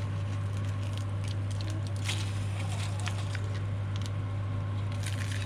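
Scattered small crackles and pops over a steady low hum.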